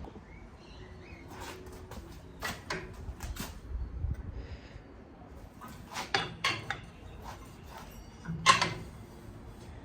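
A series of light knocks and clatters of objects being handled, in small clusters, with one sharper, louder knock about eight and a half seconds in.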